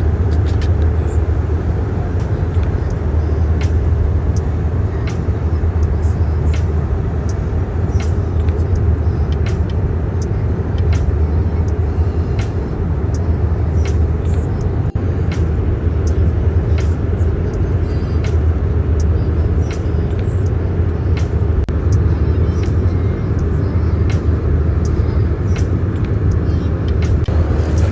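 Steady low rumble inside a moving vehicle, with frequent short sharp clicks and rattles over it.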